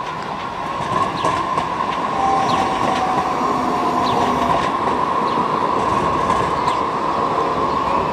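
Düwag light-rail tram passing close on curved track, with steady running noise and a high whine held throughout. The sound grows louder about a second in as the cars come alongside.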